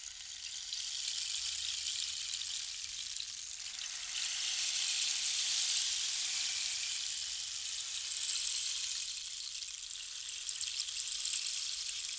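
A continuous high-pitched hiss that swells toward the middle and eases a little toward the end.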